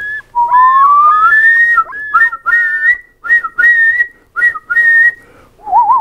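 Common loon calling in clear whistled notes: a long rising note followed by a string of short repeated notes that dip and rise again. Near the end a different, wavering whistled call begins.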